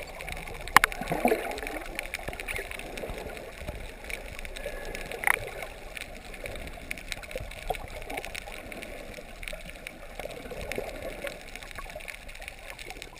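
Underwater water noise heard by a submerged camera: muffled gurgling and crackling of moving water, with a sharp click about a second in and another about five seconds in.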